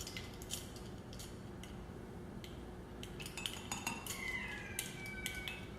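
A metal spoon clinking and tapping against a mug in a scatter of light, sharp clicks, as teaspoons of milk are measured and tipped in.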